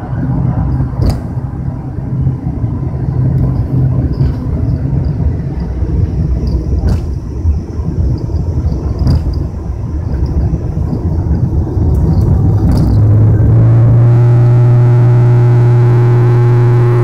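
ATR 72-500's turboprop engine and propeller heard through the cabin window while the aircraft moves on the ground: a steady low drone, with a few short clicks and rattles. About three-quarters of the way through, the sound grows louder and settles into an even, steady drone with low held tones.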